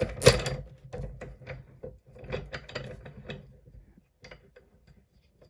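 Socket ratchet clicking as it is swung back and forth to turn the screw of a sight pusher, pressing a 1911's front sight out of its dovetail. The run of short clicks has a sharper one about a quarter second in and thins out after about three and a half seconds.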